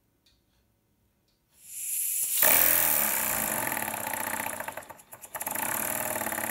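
Small single-cylinder PM Research No. 2 model steam engine running on compressed air for its first run. A hiss of air comes on about a second and a half in, then the engine picks up speed with a fast, even beat of exhaust puffs. It falters briefly about five seconds in and picks up again.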